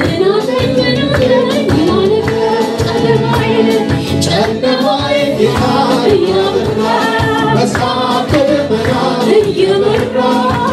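Worship singers singing a gospel song together into microphones over amplified accompaniment with a steady beat.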